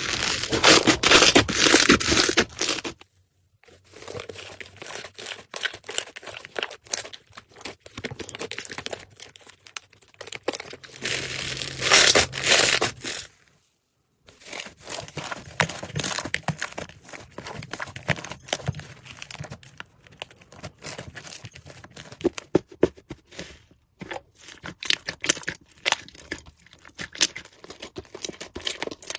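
Slime being squeezed and pressed, making dense small crackles and pops, in separate clips split by two brief silences, about three seconds in and about fourteen seconds in. It is loudest at the start and again around twelve seconds.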